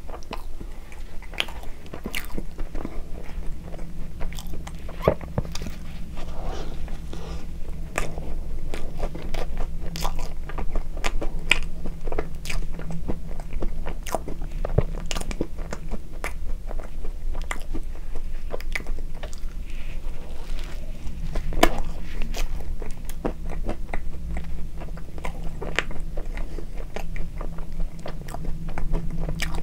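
Close-miked chewing of a soft bun filled with whipped cream and red bean paste, full of wet mouth sounds and many small, irregular crunches from the crunchy bits in the bean filling.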